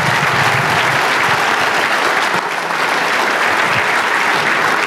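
A large audience applauding steadily: many hands clapping at once, with scattered cheers from the crowd.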